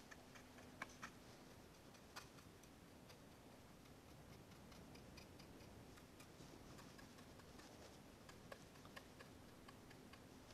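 Near silence with a few faint, scattered clicks and light tapping from a paintbrush and fingers working over a plastic scale model tank.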